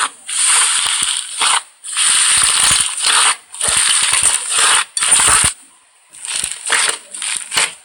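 Slime being squeezed and worked by hand, crackling and popping in repeated bursts of about a second each, with a short pause around six seconds in followed by shorter crackles.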